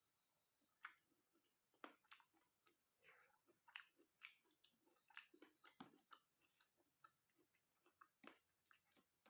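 A person chewing and eating chicken curry with rice close to the microphone: irregular short mouth clicks and smacks, one to three a second, with soft chewing between.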